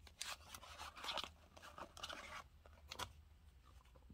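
Faint rustling and scraping of a cardboard tarot card box being opened and the card deck slid out of it, with one sharp click about three seconds in.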